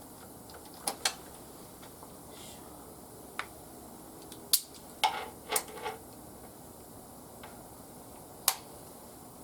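A series of sharp metallic clinks and clacks from hand tools and small metal parts being handled during motorcycle oil-change work. There are about eight, with a quick cluster in the middle, over a faint steady hiss.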